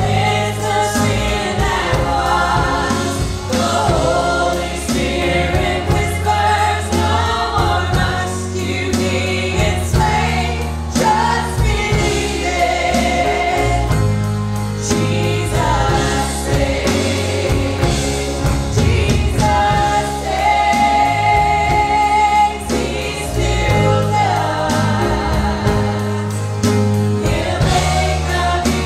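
Live gospel worship song: women singing in harmony over a band of keyboard, electric and acoustic guitars, bass and drums. The voices hold long notes over a steady beat.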